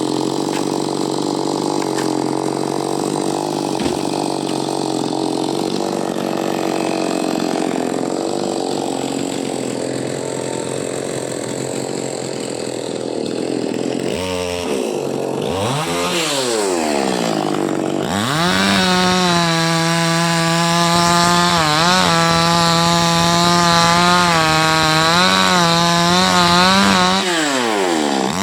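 Two-stroke chainsaw engine running; around the middle its speed drops and climbs several times, then it holds high revs with small dips as it cuts, falling off briefly near the end before picking up again.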